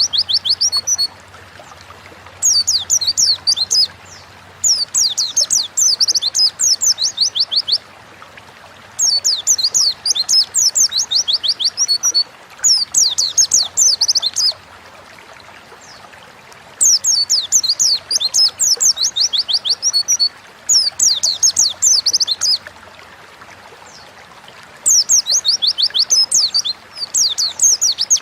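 White-eye (pleci) singing: fast runs of high, quickly falling notes in phrases of two to three seconds, repeated after short pauses, over a faint steady hiss.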